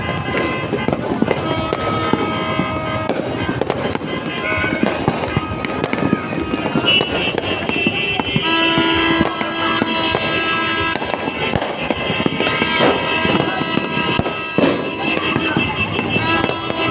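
Fireworks crackling and popping in a dense, continuous barrage, with music playing at the same time.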